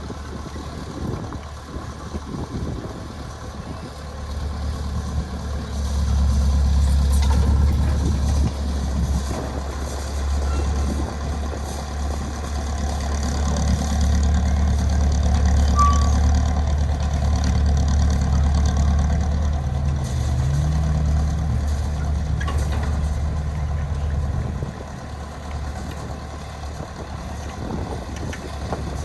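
A heavy vehicle's engine running with a steady low rumble, getting louder about six seconds in and easing off a little near the end.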